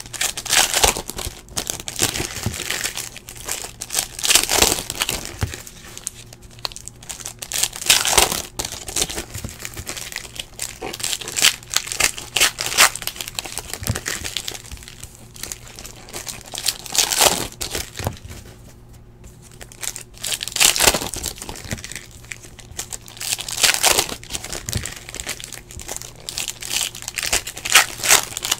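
2017-18 Panini Hoops basketball card-pack wrappers being torn open and crumpled, a crinkling rustle that comes and goes every second or few.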